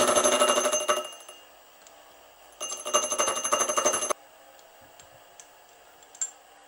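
Bench milling machine running with its gear cutter spinning: a steady whine with a fast rhythmic pulse, dying away about a second in. It runs again briefly from about two and a half seconds and cuts off abruptly, with a few faint ticks after.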